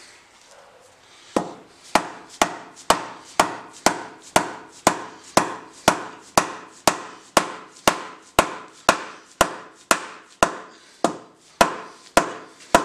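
Dead blow hammer striking a makeshift steel punch, a cut-off piece of 19 mm Allen wrench, to drive the old wedge out of an axe head's eye. The sharp strikes come steadily at about two a second, starting about a second and a half in.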